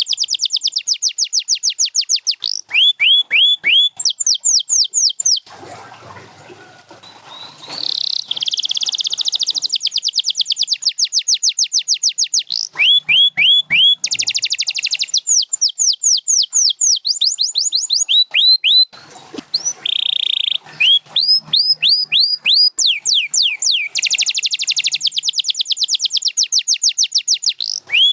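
Domestic canary singing a long song of fast repeated phrases: rapid trains of falling whistled sweeps alternating with quick buzzy trills. The song breaks off briefly about six seconds in.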